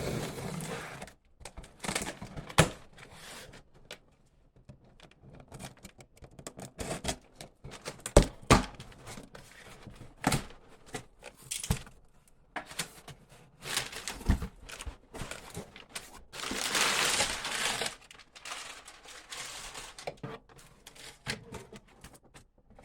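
Packaging being unwrapped by hand: plastic wrapping crinkling and tearing in irregular spells, with scattered sharp knocks and clicks as the boxed socket set is handled, the longest rustle about three quarters of the way in.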